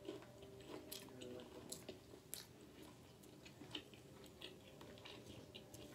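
Close-up chewing of a piece of fried chicken: faint, scattered mouth clicks and soft crunches.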